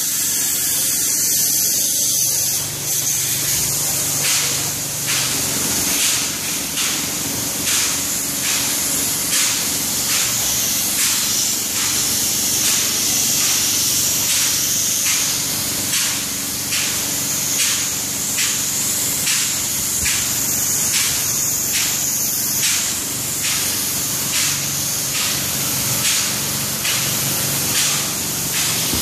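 Spray gun spraying Permaseal elastomeric roof coating: a steady, loud hiss with faint regular pulses, running without a break.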